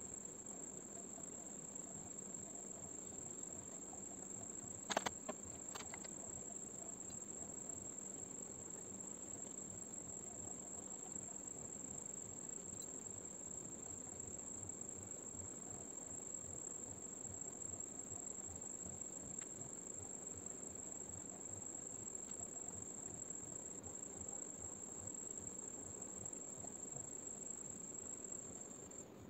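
Steady high-pitched insect trill, with faint low rustling beneath and a sharp click about five seconds in; the trill stops abruptly near the end.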